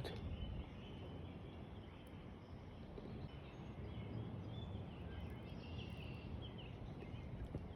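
Faint outdoor creekside background noise, with a few soft, short, high chirps in the middle.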